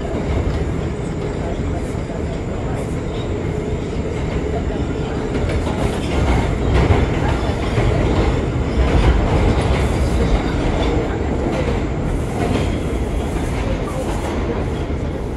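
R179 subway train running through the tunnel: a steady rumble of wheels on rail with a clickety-clack over the rail joints, swelling louder partway through.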